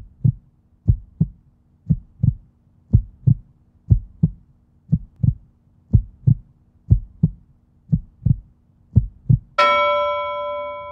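A heartbeat, the lub-dub thump pairs coming about once a second, about ten beats in all. Just before the end a bell-like chime strikes once and rings on, slowly fading.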